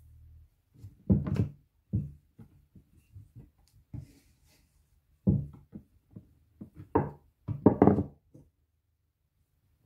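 Wooden rolling pin and hands working scone dough on a wooden board: irregular dull knocks and thumps as the pin rolls and is set down and the dough is patted flat, loudest in a cluster about seven to eight seconds in.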